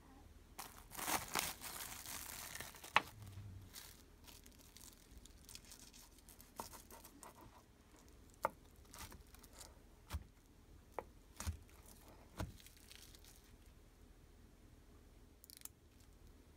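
Plastic cling film crinkling and rustling for about two seconds as a set slab of strawberry agar jelly is handled on it, ending in a sharp click. Then a scattered series of single knocks as a kitchen knife cuts down through the jelly onto the surface below.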